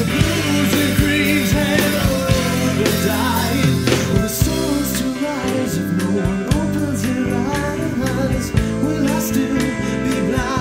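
Alternative rock song playing: a band recording with guitar over a drum beat, with a wavering melodic line above.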